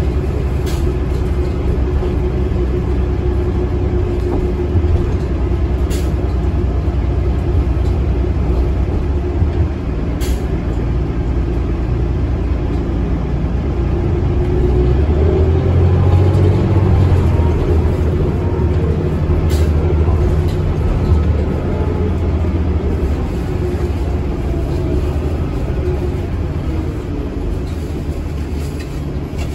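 Inside a New Flyer D40LF diesel transit bus under way: steady engine and road rumble. The engine note rises and grows louder about halfway through, and a few sharp clicks or rattles come through.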